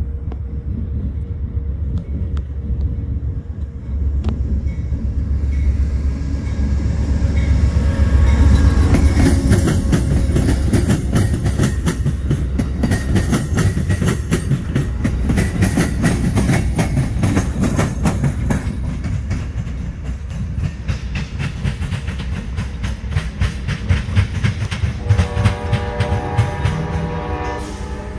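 Amtrak Heartland Flyer passenger train passing: a heavy low rumble, then the wheels clacking rapidly over the rail joints. Its horn sounds a sustained chord near the end.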